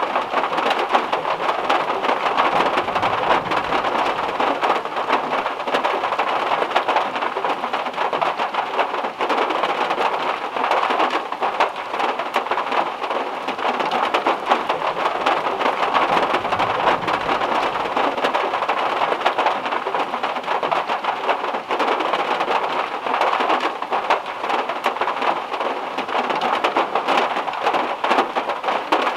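Heavy rain falling steadily on the metal roof of a VW Beetle, a dense, even patter of countless drops hitting the sheet metal.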